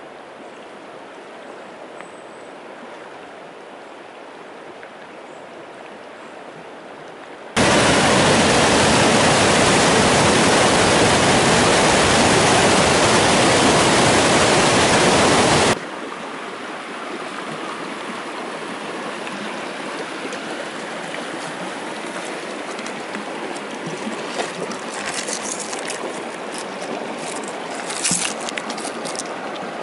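Stream water flowing, then a much louder rush of whitewater rapids that starts and cuts off abruptly, lasting about eight seconds, then gentler running water with a run of sharp clicks near the end as wet pebbles are handled.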